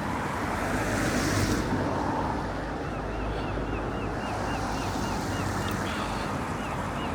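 Steady outdoor rush of wind on the microphone and road traffic. From a little before halfway, a run of quick, high little chirps repeats about three or four times a second.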